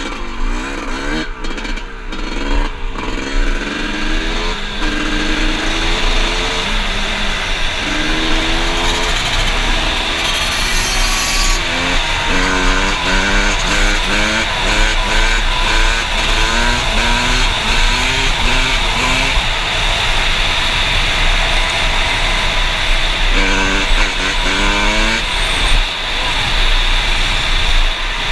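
Yamaha YZ two-stroke dirt bike engine under hard acceleration, its pitch climbing and dropping again and again as it revs up and shifts through the gears, with wind rushing over the microphone at speed.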